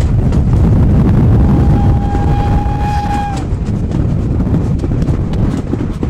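A steam locomotive's whistle sounds one steady note for about two seconds, over heavy low rumble with wind on the microphone.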